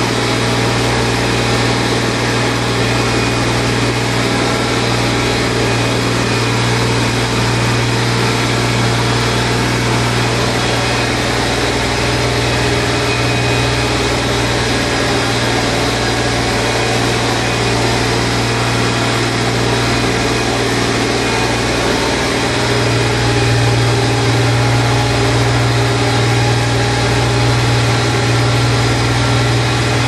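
Tractor engine running steadily while working a corn field, heard from inside the cab as a loud, even drone with a strong low hum.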